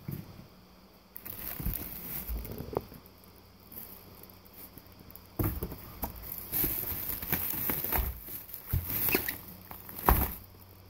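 Plastic packaging and a bubble-wrap box liner rustling and crinkling in bursts as items and gel ice packs are handled, with a sharp thump near the end.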